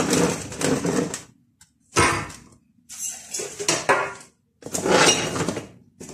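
Plastic storage containers and jars clattering and scraping as they are picked up and set down on a pantry shelf, in four separate bouts.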